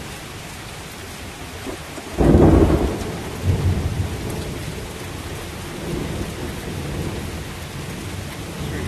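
Heavy rain falling steadily in a thunderstorm. A sudden clap of thunder comes about two seconds in and rumbles on for a second or two.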